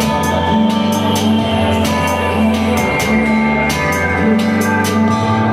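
Live music with a steady beat: sustained low bass notes under a repeating higher melodic figure, with regular percussive ticks.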